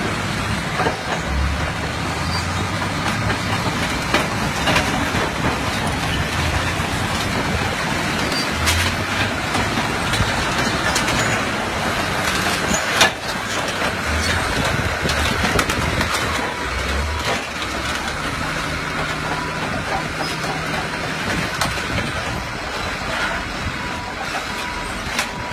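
Tracked bulldozer's diesel engine running under load and its tracks clanking as it drives over a row of dirt bikes and ATVs. There are a few sharp cracks of bike frames and plastic being crushed, the loudest about halfway through.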